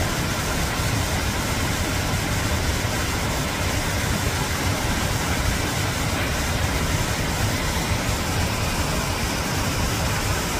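Steady rushing of a small waterfall, water tumbling down a rocky cascade.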